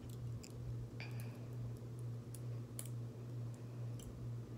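Light, scattered clicks of plastic Lego bricks being handled and fitted together, over a steady low hum.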